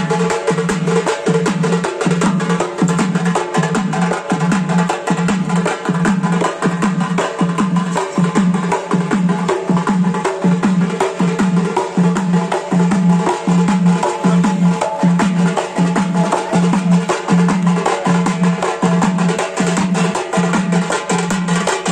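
Traditional South Indian mathalam barrel drums played by hand in a fast, steady rhythm, with a deep drum note beating evenly under rapid sharp strokes.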